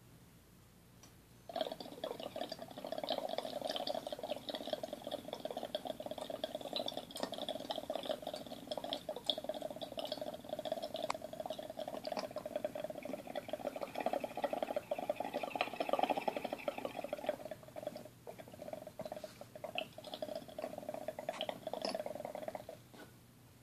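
Water bubbling and gurgling in a small glass dab rig as a dab is inhaled through it. The bubbling starts about a second and a half in and runs steadily, easing off briefly near the end.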